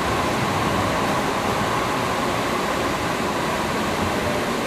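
Steady running noise heard inside a San Francisco Muni light rail car moving along the street: an even hiss and rumble with a faint steady whine in it.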